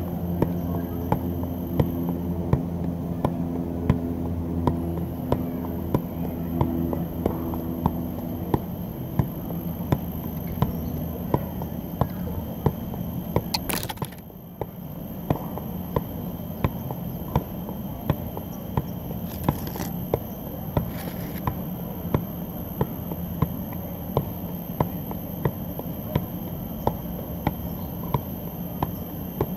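A soccer ball being juggled with the feet, each touch a sharp tap in a steady rhythm of about three every two seconds, over a steady low hum.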